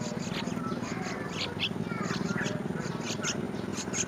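Small birds at a nest cheeping: short high peeps, roughly three a second, with a few lower falling notes, over a steady low hum.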